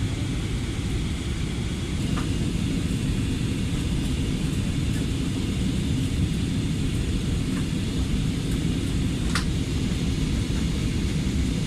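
Steady low rumble of airflow and engine noise inside the cabin of an Airbus A320 on its approach descent, with a few light clicks, the clearest about nine seconds in.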